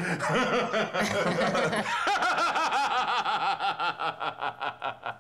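Laughter: a run of short, rhythmic 'ha' pulses, about four or five a second, steadying from about two seconds in.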